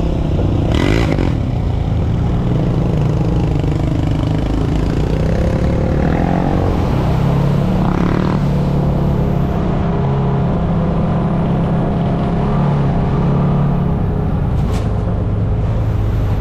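Off-road vehicle engine running steadily as it drives a sandy trail, its pitch shifting a little with the throttle, with a few short knocks and rattles from bumps.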